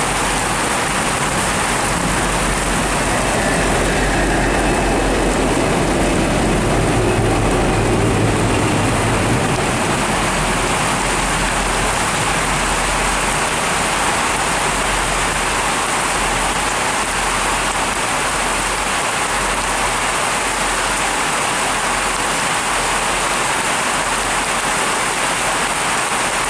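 Heavy rain pelting the ground and station platform, with two V/Line N class diesel-electric locomotives running light past underneath it; their engines are a low drone below the rain that swells for about three seconds around seven seconds in.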